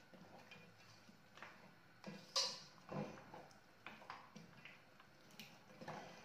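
Wooden spoon stirring a thick mutton and potato curry in a pot: faint, irregular scrapes and taps of the spoon against the pot, the loudest about two and a half seconds in.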